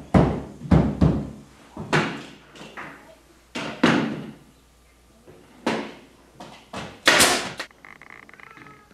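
A pneumatic nail gun fired repeatedly, fixing reclaimed barn boards to the wall: a dozen or so sharp knocks at irregular spacing, the loudest about seven seconds in.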